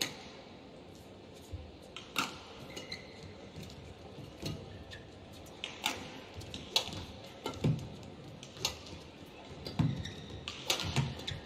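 Badminton rally: rackets strike the shuttlecock with sharp, crisp hits about once a second, with the players' footfalls and lunges thudding on the court mat.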